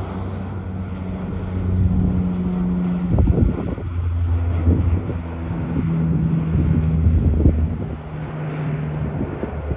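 Canadair CL-415 "Super Scooper" water-bomber flying overhead, its twin turboprop engines giving a steady low propeller drone that shifts slightly in pitch as it passes. Wind buffets the microphone now and then.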